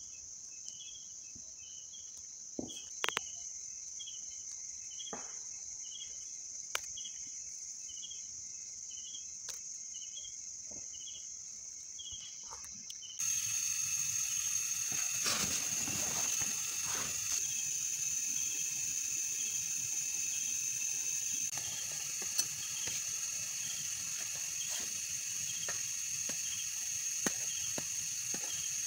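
Night insects trilling steadily, with a slower pulsing call beneath the trill and occasional sharp crackles from a small wood campfire. About 13 seconds in, the sound cuts to a louder, even noise while the insect trill carries on.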